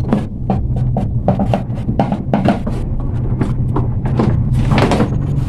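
Repeated clicks and knocks of hands handling the plastic housing and wiring inside an open air cooler, over a steady low hum.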